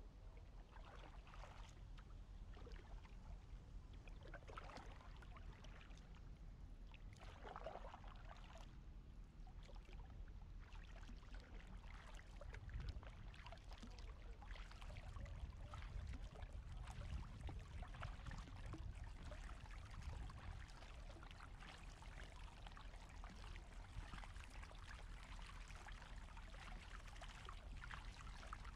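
Double-bladed kayak paddle dipping into calm water, with faint splashes and water trickling off the blades: separate strokes a few seconds apart at first, then more steady splashing with a low rumble from about halfway.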